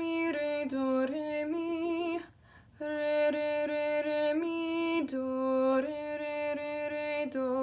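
A woman sight-singing a simple C-major melody in solfège syllables, unaccompanied, in even held notes that step between a few neighbouring pitches. She breaks for a breath about two and a half seconds in, and the line ends on a lower held note.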